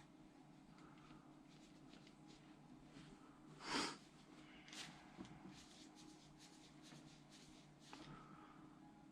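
Near silence with faint clicks of small handling noises, and one brief rush of noise a little under four seconds in.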